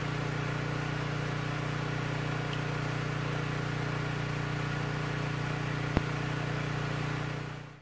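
Ridgid portable generator's engine running steadily on gasoline just after a cold start, with a single brief click about six seconds in. The sound fades out near the end.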